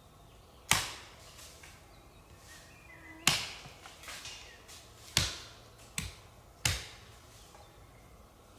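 Five sharp knocks at uneven gaps of about one to two seconds, each dying away quickly.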